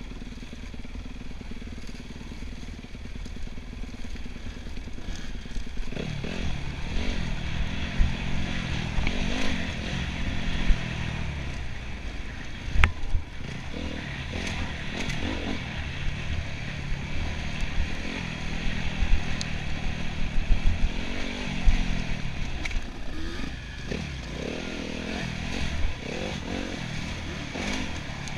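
Enduro motorcycle engine riding off-road, its revs rising and falling again and again, with scattered clattering knocks from the bike over rough ground. It is lower and steadier for the first six seconds.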